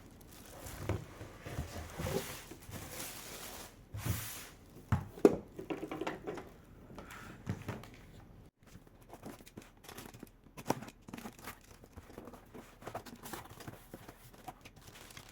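Cardboard packaging and plastic wrapping foil rustling and crinkling as they are handled and pulled off during unpacking, with scattered knocks and taps.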